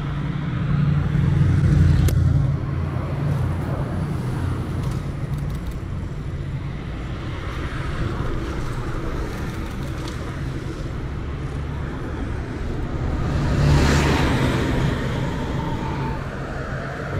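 City street traffic: motor vehicles running and passing in a continuous rumble, swelling twice, about two seconds in and again more sharply about fourteen seconds in as a vehicle goes by close.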